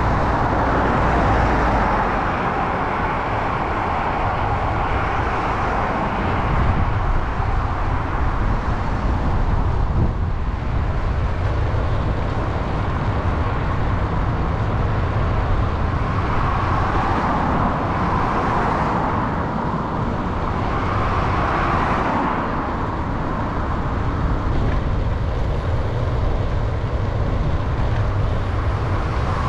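Road traffic noise heard from a moving bicycle: steady wind and road rumble at the camera microphone, with motor vehicles passing and one swelling past about two-thirds of the way through.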